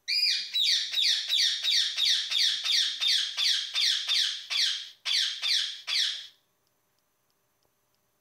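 Indian ringneck parakeet yelling: a fast run of loud calls, each sliding down in pitch, about three a second. The run breaks briefly near five seconds in and stops about a second later.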